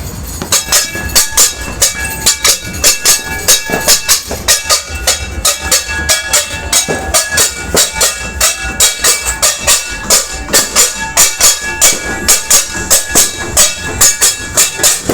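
Rapid, uneven clanging of metal being struck, about four strikes a second, each ringing briefly: New Year's noisemaking meant to drive away bad luck.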